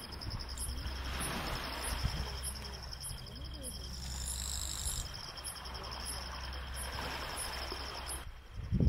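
Night insects, crickets, trilling steadily in a fast pulsing chirp over a low hum. Just before the end it gives way to a louder low rushing sound.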